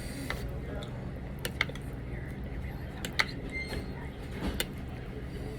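Eating a bowl of pho: a handful of short sharp clicks and clinks of utensils against the bowl, the loudest about one and a half, three and four and a half seconds in, over a steady low background hum.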